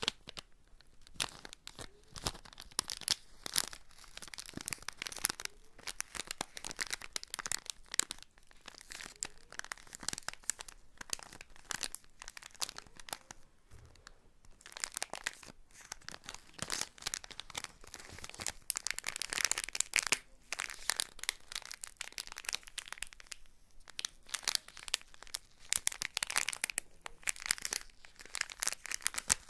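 Crinkly material being handled and scrunched close to the microphone: dense crackling rustles that come in clusters, with short lulls between.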